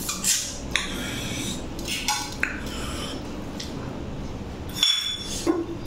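Eating sounds: chicken curry chewed and smacked while eaten by hand, with a few short, lightly ringing clinks from stainless steel dishes.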